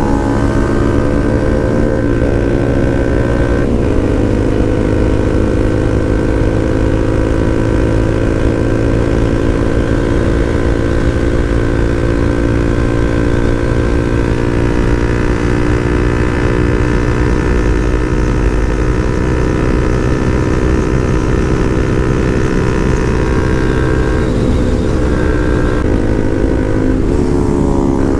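Motorcycle engine running steadily at highway cruising speed, heard from the rider's helmet mic with heavy wind rumble; the engine note dips briefly and picks up again near the end.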